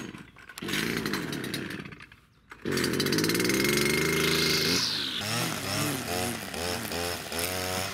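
Stihl petrol brush cutter running, with a short break about two seconds in. It then revs up and down again and again as its string head cuts grass.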